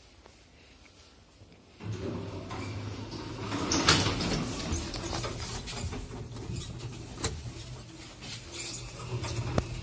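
1977 Zremb passenger lift's sliding doors opening about two seconds in with a steady low hum and rattling, followed by several sharp clicks and knocks as the car is entered.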